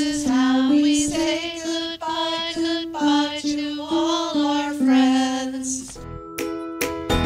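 A woman singing a slow goodbye song, one voice in long held notes. About six seconds in the singing stops and a plucked-string tune begins.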